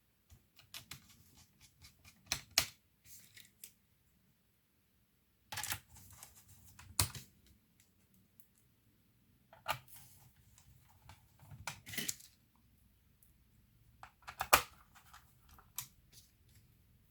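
Plastic clicks, taps and knocks from laptop parts being handled and fitted by hand, in four short bursts a few seconds apart, each ending in a sharper snap.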